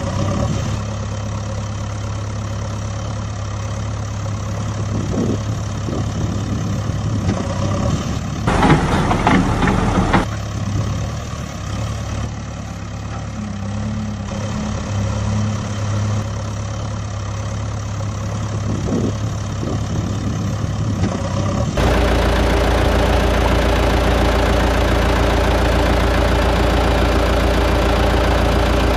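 Engine running steadily, with a louder surge about eight and a half seconds in, then an abrupt switch at about 22 seconds to a louder, rougher engine sound.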